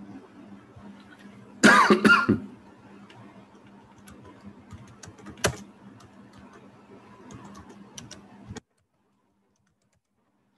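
A loud cough about two seconds in, then scattered clicks of computer keyboard keys being typed over a low hum; the sound cuts off suddenly near the end.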